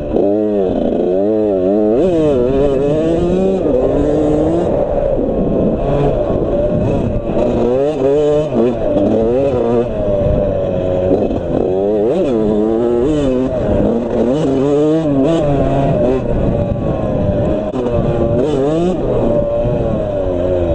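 Suzuki RM85 single-cylinder two-stroke dirt bike engine being ridden hard, revving up and dropping back over and over, its pitch climbing and falling every second or two.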